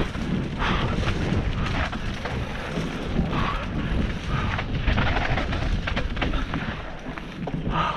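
Mountain bike descending a rough dirt singletrack: tyres rumbling over the ground and the bike rattling with many small clicks over bumps, under steady wind buffeting on the GoPro's microphone.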